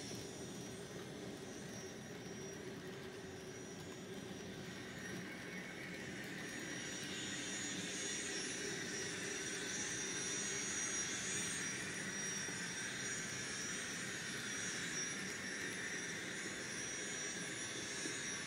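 N scale Union Pacific GTEL gas-turbine locomotive model's sound decoder playing a steady turbine whine through its small onboard speaker, growing louder from about a third of the way in.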